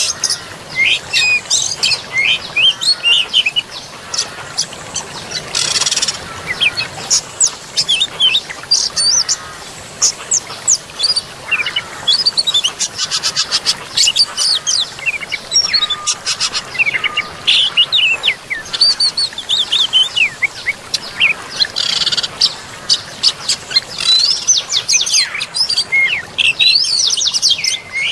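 Dense forest birdsong from several birds at once: a constant run of quick chirps, trills and whistles, over a faint steady rush of running water.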